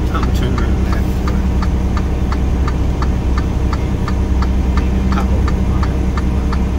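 Steady engine and road drone inside a moving truck cab at highway speed, with a light, even ticking about five times a second.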